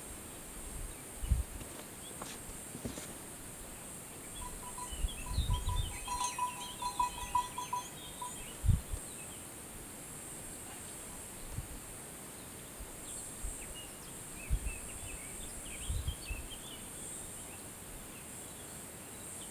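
Outdoor summer ambience: a steady high insect drone, with birds chirping now and then and a quick run of pulsed notes about five seconds in. Occasional low thumps come and go.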